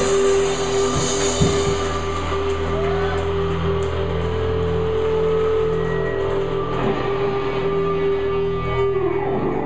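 Live rock band playing: electric guitars hold long sustained notes over bass and a drum kit, and the held notes change about nine seconds in.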